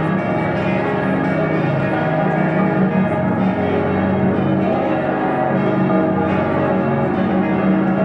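Many church bells ringing at once across a city, their strokes overlapping into one dense, continuous peal.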